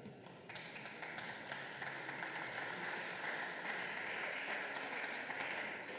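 Audience applauding, the clapping swelling over the first second or so and easing off near the end.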